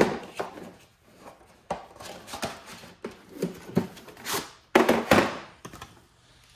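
A boxed ratcheting wrench set being handled and unpacked: a run of scraping, rustling and knocking noises from its packaging and blow-molded plastic case, loudest about five seconds in.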